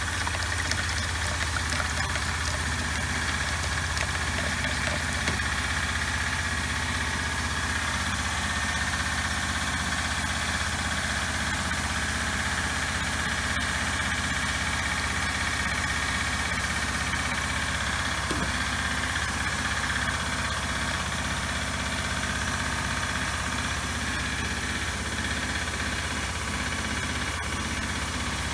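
Steady machine hum with a faint high whine above it, the even drone of a motor running without pause.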